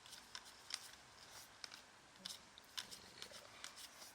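Faint, irregular light ticks and rustles of 2016-17 Prestige basketball trading cards being flipped through and handled by hand.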